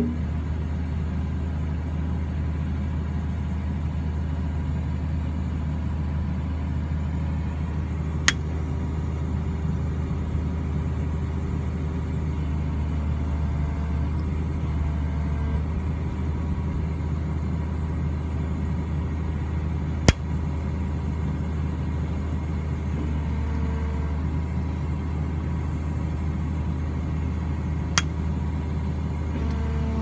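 A 25-ton excavator's diesel engine running with a steady low drone, while a faint higher tone comes and goes. Three sharp clicks cut through it, about 8, 20 and 28 seconds in, the middle one the loudest.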